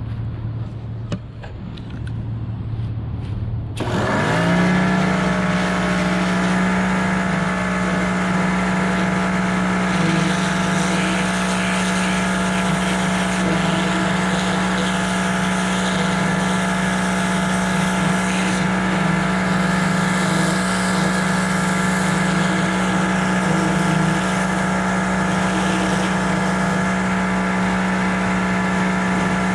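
A motor starts about four seconds in. Its pitch rises quickly, then it runs on at a steady hum.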